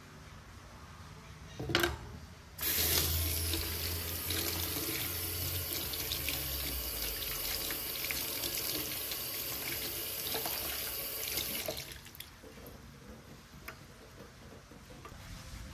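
Kitchen tap running into a stainless steel sink for about nine seconds, splashing over produce being scrubbed under the stream, then shut off abruptly. There is a brief knock just before the water starts.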